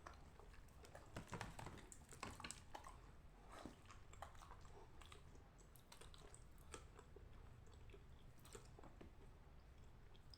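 Lumps of dry edible clay being broken apart by hand: faint, irregular crackles and small snaps, thickest in the first few seconds.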